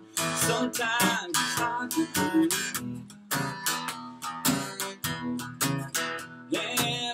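Live country song: a strummed acoustic guitar with a man singing over it.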